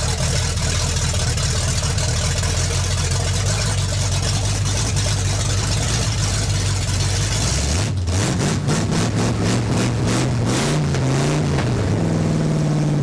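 A 454 big-block V8, just started, runs at a steady idle, then from about eight seconds in is revved several times, its pitch climbing and falling. The carburetor has just been dialed in and the vacuum leaks fixed, and it is running crisp.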